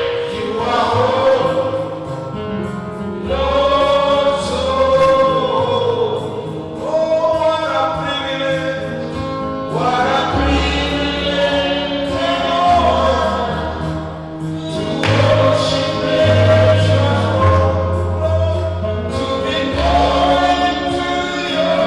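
Gospel choir singing over a band with held bass notes.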